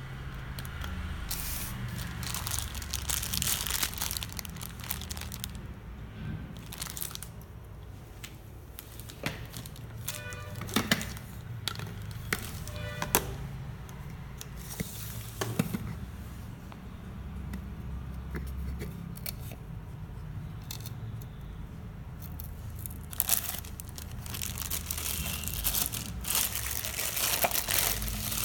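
Plastic packaging crinkling and rustling while small-appliance parts are handled, with a few sharp clicks and short squeaks of hard plastic parts between about 10 and 16 seconds in, over low background music.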